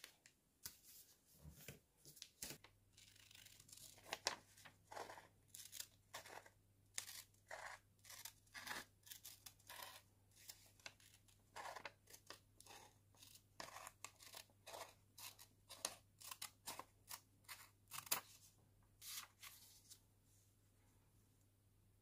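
Scissors cutting through kraft paper: a long run of short, uneven snips, stopping a couple of seconds before the end.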